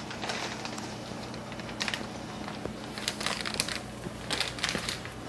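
Plastic liner bag of a cereal box crinkling in several short bursts as it is pulled and handled.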